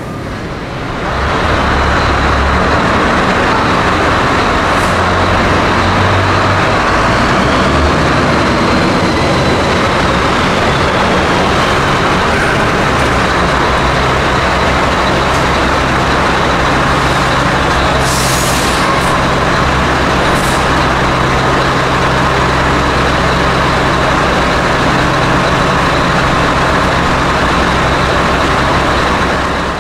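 Scania V8 truck engine with open exhaust pipes running steadily at low revs inside a tunnel. A short air-brake hiss comes about eighteen seconds in.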